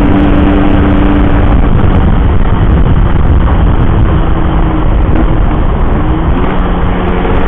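Yamaha RX-King two-stroke single-cylinder engine running while riding, with wind rumble on the microphone. It holds a steady pitch, eases off about a second and a half in, then picks up again with small rises in pitch.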